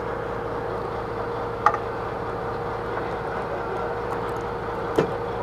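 Steady drone of a fishing boat's motor running, a constant hum with a held tone. Two short sharp knocks break it, one about one and a half seconds in and one near the end.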